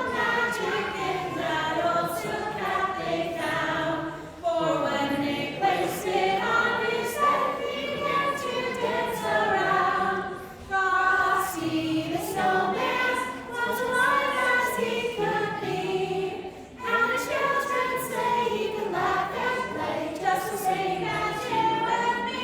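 Group of children singing a Christmas carol together.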